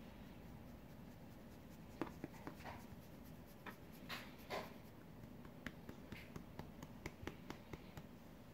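A hand rubbing and stroking a Russian Blue cat's fur: faint brushing swishes and scattered light scratchy ticks, beginning about two seconds in.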